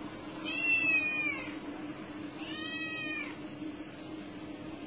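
A domestic cat meowing twice, two high calls about two seconds apart, the first longer with a slightly falling pitch, over a steady low hum.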